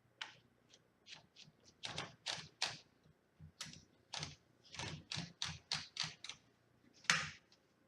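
1956 Smith Corona Silent Super manual typewriter being typed on: about twenty irregular key strikes in short runs, with one heavier strike about seven seconds in. The machine has just been cleaned, serviced and adjusted.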